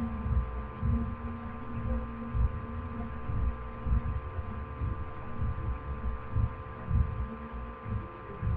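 Dull low thumps, roughly one every half to three-quarters of a second, over a steady electrical hum.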